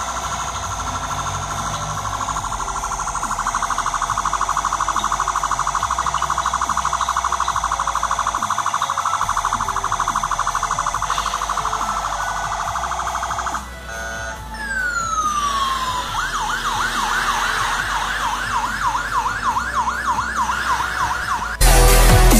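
Electronic toy police siren switching between its sounds: a fast warbling tone, then about 14 seconds in a falling sweep followed by a quick repeated rising yelp, about three a second. Loud electronic music starts abruptly near the end.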